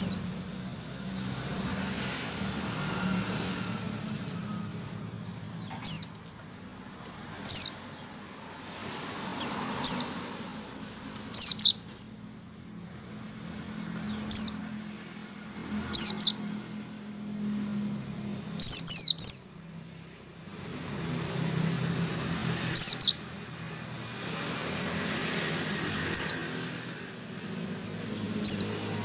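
A white-eye (pleci) giving short, high call notes that sweep quickly downward, about a dozen spaced irregularly one to three seconds apart. These are the 'ngecal' calls a white-eye gives before breaking into full song. A steady low hum runs underneath.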